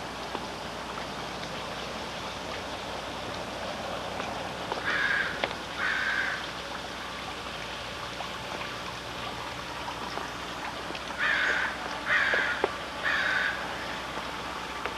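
A bird calls twice about five seconds in, then three times about eleven seconds in, each call short, over a steady background hiss.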